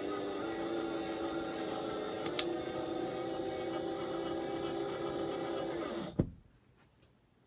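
Cordless drill running steadily as it drives a screw into a drywall anchor, spreading the anchor behind the board, with a couple of sharp clicks about two seconds in. The motor winds down and stops about six seconds in.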